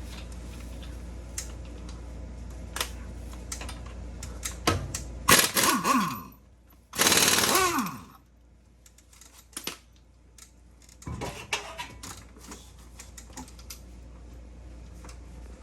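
Air impact wrench on the front wheel's 13/16 lug nuts, run in two loud bursts of about a second each, around five and seven seconds in, each falling in pitch as it spins down. Scattered clicks and clanks of tools and nuts come before and after.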